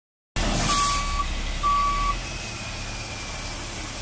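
Delivery tractor-trailer's diesel engine running while its backup alarm beeps twice, about a second apart; the engine rumble then eases.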